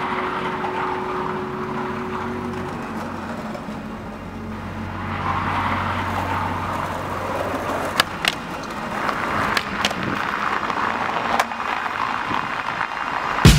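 Skateboard wheels rolling over paving stones with a steady hiss, broken by several sharp clacks of the board (pops and landings) in the second half. The loudest clack comes near the end.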